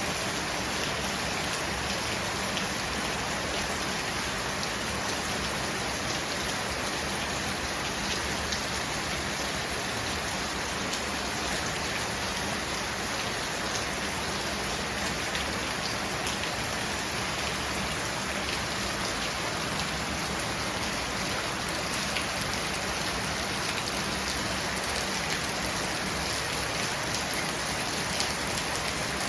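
Steady heavy monsoon rain falling and pattering on surfaces, an even hiss with scattered drop ticks, picked up by a compact stereo lavalier microphone.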